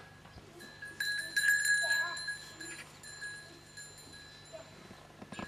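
A bell on grazing calves rings in a steady tone, loudest in the first couple of seconds and then fading.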